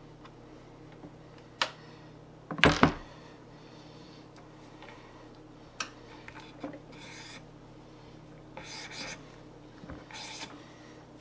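A rifle set down with a sharp clatter on a plastic cleaning cradle about three seconds in, then a Hoppe's BoreSnake cleaning cord drawn through the barrel in several short pulls.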